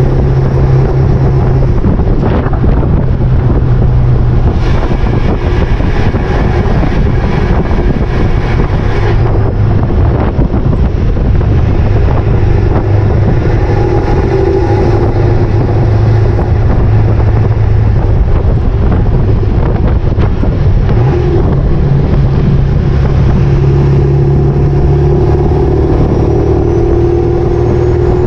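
Ford 7.3 Power Stroke turbo-diesel V8 pulling a loaded trailer on the road, heard from the trailer behind the truck, with wind and road noise. The engine note shifts in pitch several times as it goes.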